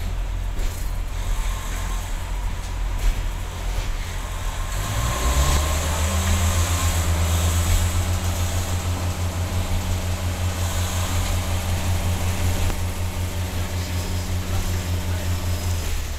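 Diesel multiple unit's underfloor diesel engine heard from inside the passenger saloon: a low drone that rises in pitch about five seconds in as the engine speeds up, then holds steady, over a haze of running noise.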